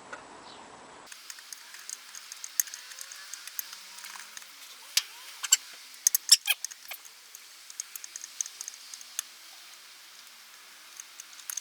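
Scattered small metallic clicks, taps and scrapes of hand tools and parts as the air filter is taken off the carburettor, with a cluster of sharper clinks about halfway through.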